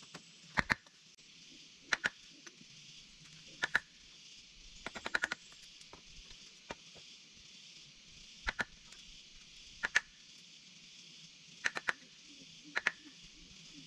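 Sharp knocks on wood, some single and some in quick runs of two to four, coming every second or two over a steady high hiss.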